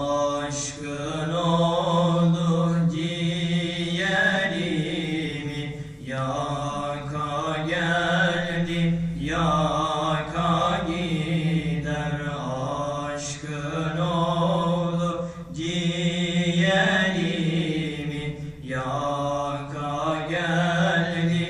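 Two young men singing a Turkish Islamic hymn (ilahi) into a microphone, unaccompanied, in long held phrases that bend up and down in pitch with short breaths between them.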